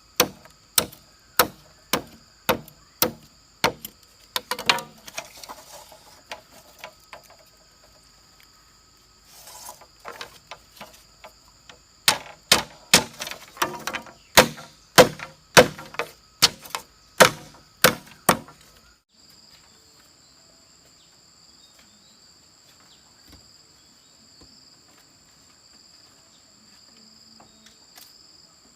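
Rhythmic chopping blows of a hand tool on wood or bamboo, about two strikes a second, in two runs, stopping abruptly about two-thirds of the way in. Insects buzz steadily at a high pitch throughout and are all that remains after the chopping stops.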